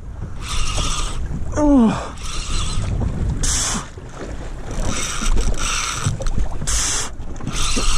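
Fishing reel whirring in repeated short bursts, about one a second, while a big Spanish mackerel is being fought on heavy tackle, with a man's single "Oh" about two seconds in.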